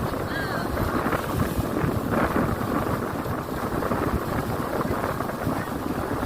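Wind buffeting the microphone aboard a speedboat running at speed, with the boat's motor and water noise underneath.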